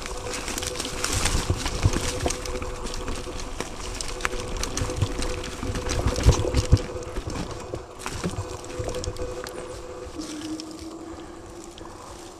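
Mountain bike ridden along a rough dirt trail: tyre noise with knocks and rattles over bumps, heaviest about a second in and again around six seconds in, and a steady hum running underneath.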